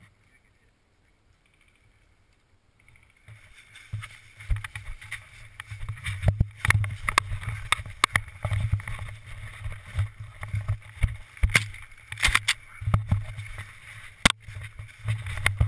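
About three seconds of near silence, then hurried footsteps crunching and rustling through deep dry fallen leaves, an irregular stream of crunches and knocks that gets louder a few seconds in, heard through a helmet-mounted GoPro.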